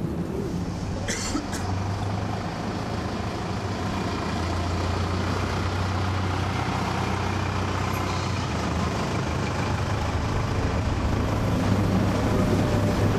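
Pickup truck engine running with a steady low hum, growing gradually louder as the truck draws near. A short click about a second in.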